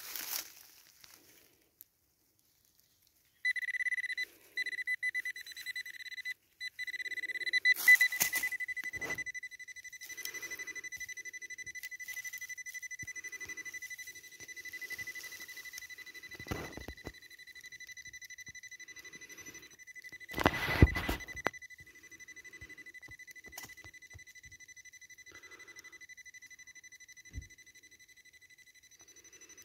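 A metal detector's high, steady tone sounds from about three seconds in, with a couple of brief breaks, signalling metal in the hole. Under it come scraping and rustling of a hand digging in soil and leaf litter, loudest about eight and twenty-one seconds in.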